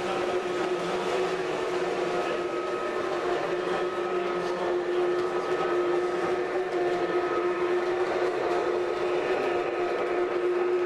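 Model train running on an exhibition layout: a steady motor hum over a constant rolling noise.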